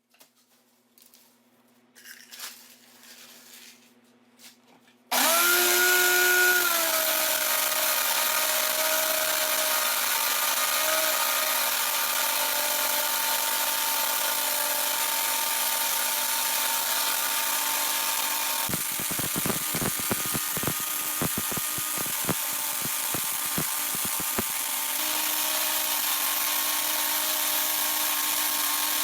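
Homemade corn grinder's motor switched on about five seconds in and running steadily at speed with a whine. About two-thirds of the way through, a few seconds of rapid clattering knocks come through the running sound, then it runs on smoothly.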